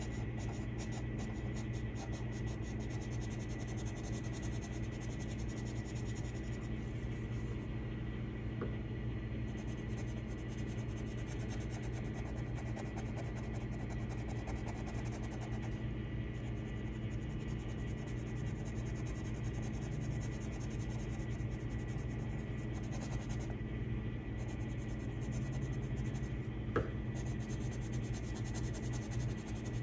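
Colored pencil scratching on paper as it shades, over a steady low hum. There is one short click near the end.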